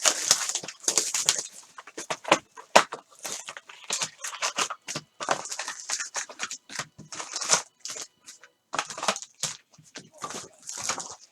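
Trading-card pack wrappers being handled and torn open: irregular crinkling and tearing of plastic foil, with cards shuffled in the hands.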